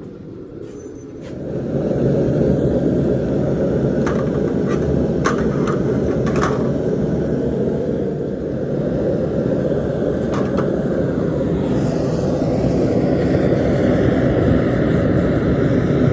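Blown forge running with a steady low roar from its burner and blower, which gets louder about a second and a half in. A few sharp clicks come in the middle.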